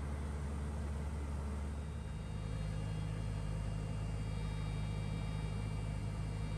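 Cabin drone of a Cessna 172P's four-cylinder Lycoming engine and propeller in flight, running steadily. The drone steps up slightly in pitch about two seconds in.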